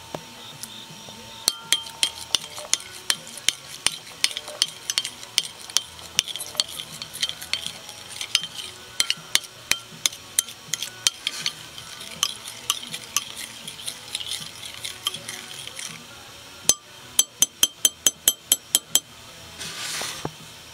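Metal spoon stirring sauce in a glass bowl, clinking against the glass about three or four times a second. After a short pause comes a quick run of about ten taps, then a brief scrape near the end.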